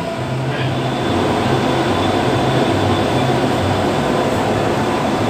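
Dubai Metro train running, heard from inside the passenger car: a steady rumble of wheels and motors with a low hum that swells and fades.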